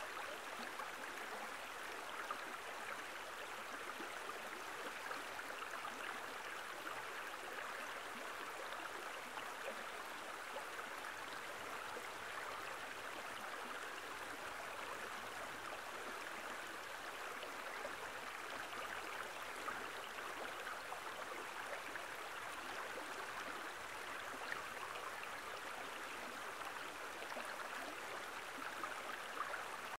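Steady even hiss of background noise, with a few faint scattered ticks.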